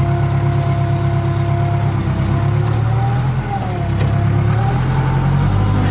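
Case 580K backhoe's four-cylinder diesel engine running under working load, dipping briefly a little past the middle and then running harder. Over it come drawn-out squeaking tones from the loader and backhoe pins and bushings, a squeak the operator puts down to freshly greased pins rather than dry ones.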